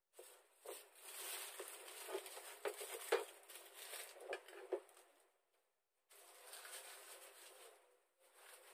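Someone handling things in a kitchen: irregular rustling with a few sharp clicks and knocks in the first half, a short pause, then more rustling.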